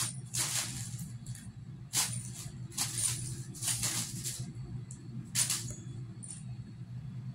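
A plastic mailer bag rustling and crinkling in short, irregular bursts as a kitten paws, bites and drags it across a tile floor, over a steady low hum.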